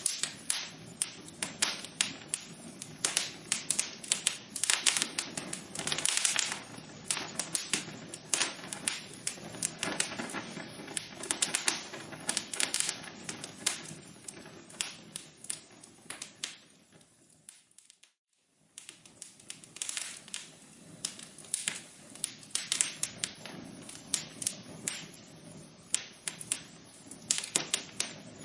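Wood fire in a fireplace crackling: a dense, irregular run of sharp pops and snaps over a soft hiss. Past the middle it fades almost to silence for about a second, then the crackling resumes.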